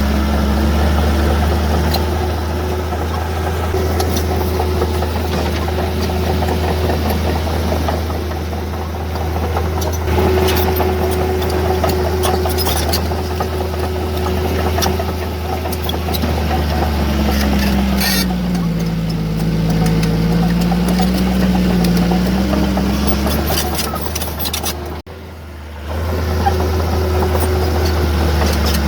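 Heavy earthmoving machine's diesel engine running steadily, with a deep hum. Its pitch sags for a few seconds past the middle and climbs back as the engine comes under load and recovers. The sound drops away briefly near the end.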